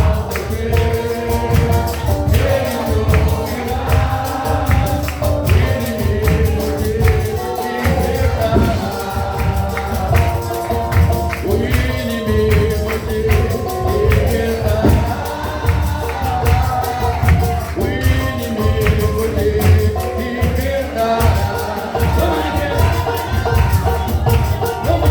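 A church music group performing a gospel song live: voices singing over a band with a strong bass line and steady percussion, a tambourine among it.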